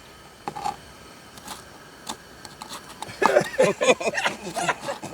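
A few sparse knife clicks on a cutting board as a bell pepper is cut, then voices from about three seconds in.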